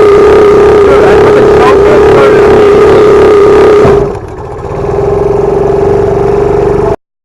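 Boat motor running loud and steady close to the microphone, with a low pulsing underneath its drone; it drops off about four seconds in, picks up again, then cuts off suddenly near the end.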